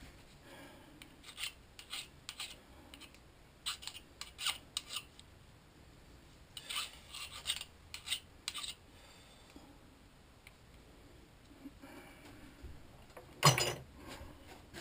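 Short scraping and rubbing strokes on metal, in three brief clusters, followed by one sharp knock near the end.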